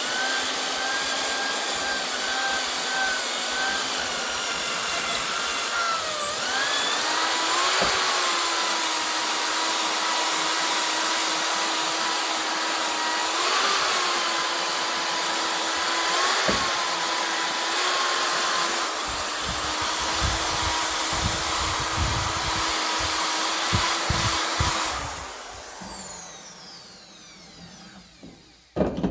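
Handheld power tool cleaning a metal dynamo casing, its motor whining at a steady pitch that dips and picks back up about six seconds in and wavers slightly as it bears on the metal. It is switched off about 25 seconds in and winds down, followed by a sharp knock near the end.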